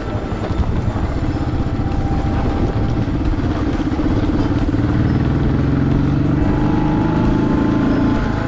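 Royal Enfield Standard 500's single-cylinder engine running on the move, its note growing stronger from about halfway through.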